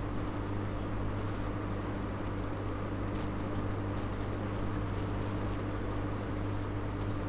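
A steady low electrical hum with even hiss, like the background noise of a computer recording, with a few faint ticks.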